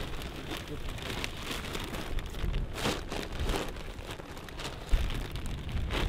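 Plastic feed sacks rustling and crinkling in irregular bursts as they are handled. A low rumble of wind on the microphone comes in about five seconds in.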